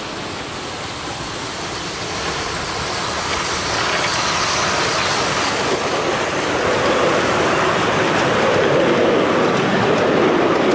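Miniature-railway steam locomotive, an LNER A4 Pacific, running past with its train of passenger carriages. Wheels run on the rails in a steady noise that grows louder as the train approaches.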